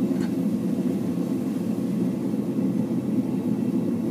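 Homemade blacksmith propane forge burning, its gas burner giving a steady, low-pitched rush.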